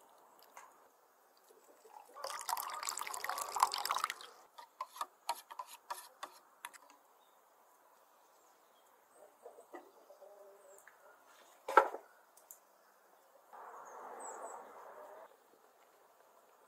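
Hand food preparation with a stainless steel bowl: lemon juice squeezed and dripping in, a loud clattering spell about two seconds in, then scattered clicks. A single sharp metal clink comes past the middle, and a short steady run of liquid near the end.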